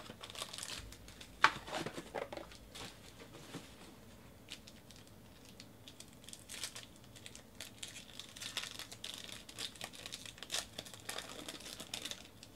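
Foil wrapper of a Topps Tier One baseball card pack crinkling and tearing as it is peeled open by hand, with a sharp tap about a second and a half in.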